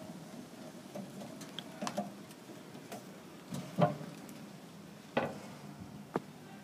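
About six scattered light knocks and clicks against a faint steady background, the loudest just under four seconds in.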